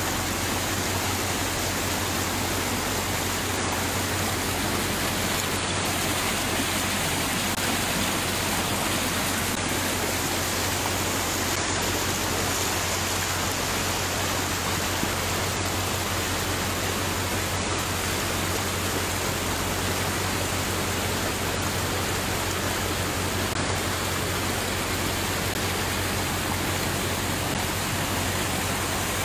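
Coldwater River floodwater rushing through a residential street: a steady, unbroken rush of water.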